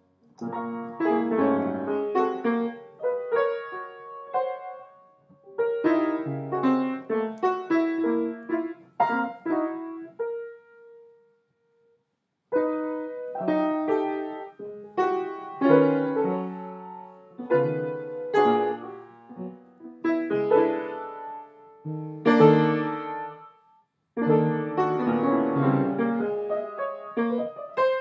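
Piano music played in separate phrases of notes, with a silent pause of about two seconds halfway through and a brief break near the end.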